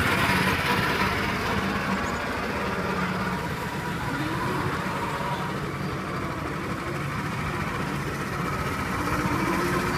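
Small engine of a children's mini car running steadily as it drives along the track, getting louder again near the end as the car comes closer.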